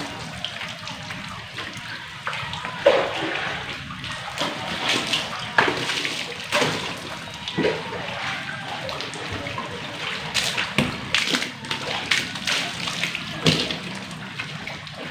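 Water thrown from a hand dipper over a motor scooter, splashing onto it and the wet concrete beneath in a series of irregular splashes a second or two apart.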